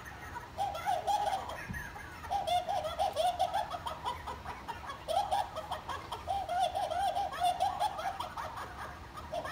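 High-pitched giggling in about five bouts of one to two seconds, each a quick wavering run of 'hee-hee' laughs with short pauses between.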